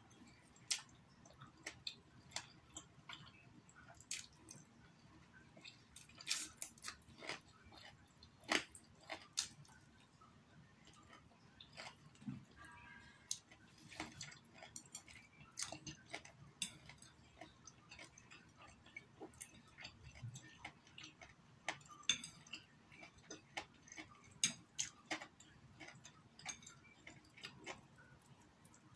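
A person eating stir-fried instant noodles with chopsticks: soft chewing with irregular, sharp mouth clicks and smacks, a few louder than the rest.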